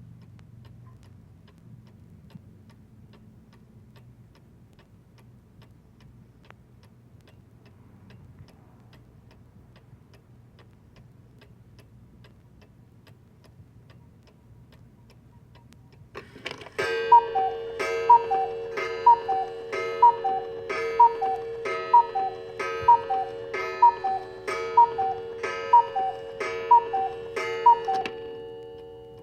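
Vintage cuckoo clock ticking quietly, then about halfway through a clunk as the mechanism trips and the cuckoo calls about a dozen times. The calls come at roughly one a second, each a falling two-note 'cu-ckoo', over a steady ringing tone that fades out at the end.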